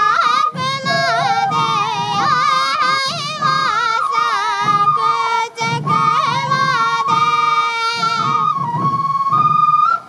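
Traditional sansa odori music from Morioka: a high, wavering melody of held notes and slides, carried by several voices or instruments at once, over the beat of many sansa taiko drums.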